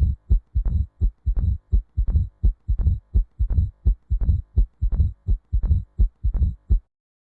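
Recorded heart sounds: a fast, even run of short low thumps, about three to four a second, that stop shortly before the end.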